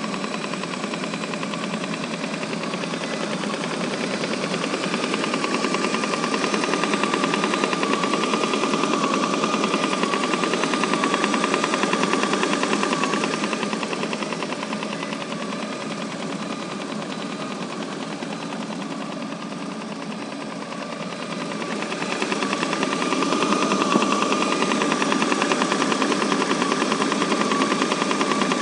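Lada Priora engine running with a rapid, steady knocking from under the hood, a noise whose cause the owner does not know. It dips somewhat in the middle and grows louder again near the end.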